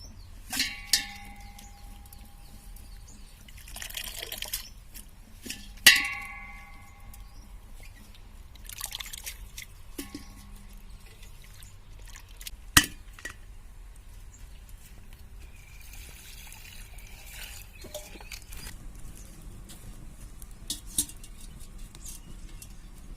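Metal cooking vessels clinking a few times, with brief ringing after the loudest strikes, and liquid pouring and dripping in between.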